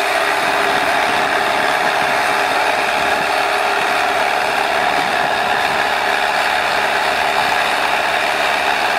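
Deutz-Fahr 86 tractor's diesel engine running steadily under load while pulling a 28-disc offset disc harrow through the soil, a continuous mechanical drone.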